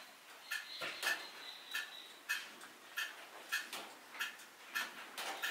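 Mechanical clock ticking steadily, a little under two ticks a second.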